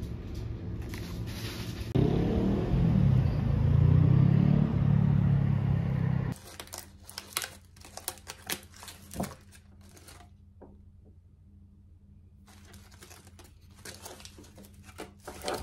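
A loud, low droning sound for the first few seconds, then a foil wrapper crinkling and crackling as it is peeled off a Terry's Chocolate Orange, in two spells with a short pause between.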